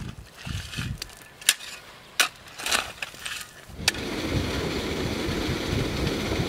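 A few sharp knocks of a long-handled digging tool working the soil, then from about four seconds a steady rushing of irrigation water flowing along a dug ditch.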